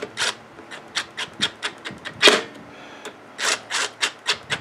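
Cordless impact driver run in several short bursts, gently snugging the nuts that hold the air filter box on the carburetor studs, with sharp clicks in between.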